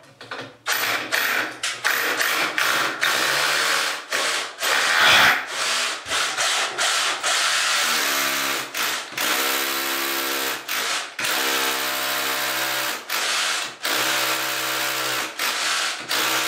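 Power drill with a masonry bit boring through pre-drilled holes in a timber batten into the masonry wall behind, in short bursts with many brief pauses. From about eight seconds in the drill's motor tone runs steadier between the stops.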